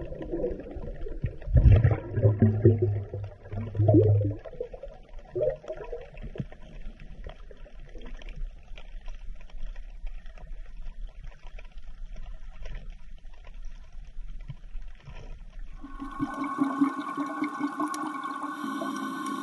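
Underwater water noise with gurgling bubbles, loudest in the first four seconds and then a softer hiss. About sixteen seconds in it changes abruptly to a steady drone of several held tones.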